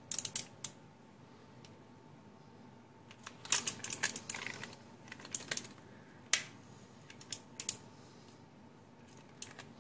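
Scattered clicks and light knocks from handling the parts of a disassembled mechanical keyboard, with a quick cluster of clicks about three and a half seconds in.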